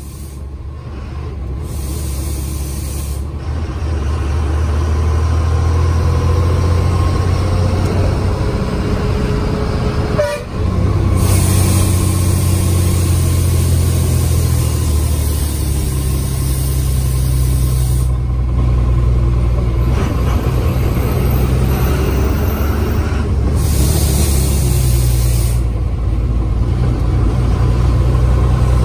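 Bus engine heard from inside the cabin, running steadily as the bus drives along, with a brief dip in the sound about ten seconds in. Bouts of high hiss come and go over it.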